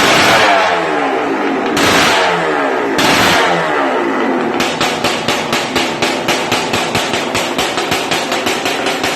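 Yamaha RX 135 two-stroke single-cylinder racing motorcycle engine blipped sharply several times, the revs falling away after each blip. About halfway through it settles into a rapid, even popping at about four beats a second.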